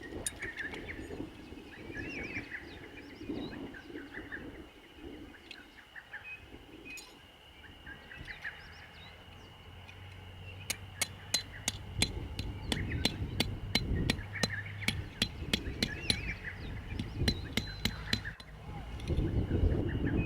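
Birds chirping over a steady high drone, with low rumbling. About halfway through, a quick run of sharp clicks or taps starts and goes on for several seconds, louder than the birds.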